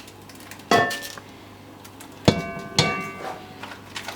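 Kitchen clatter of cookware and utensils: a sharp clank under a second in and two more between two and three seconds in, each ringing briefly, followed by lighter knocks.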